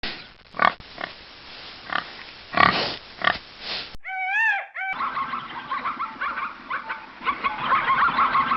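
A pig grunting in short, rough bursts, then a brief wavering pitched animal call, then a flock of chickens clucking busily together.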